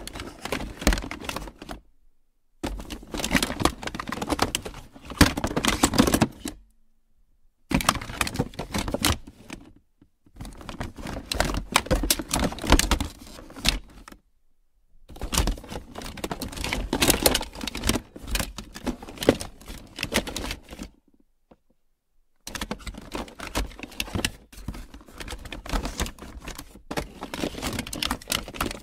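Small plastic toys clattering and rattling against each other as a box full of them is shaken and rummaged, in several bouts of a few seconds separated by brief pauses.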